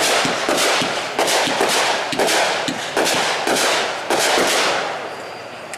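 Boomwow 'Literally Lit' consumer firework cake firing a rapid string of shots, about two a second, each bang trailing off in a fading hiss. The firing eases off near the end.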